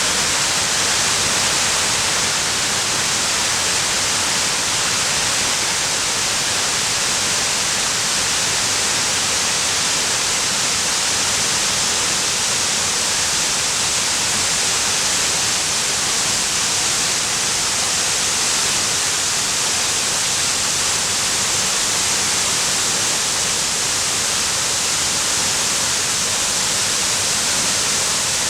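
Waterfall: a steady, even rush of falling water, mostly a high hiss.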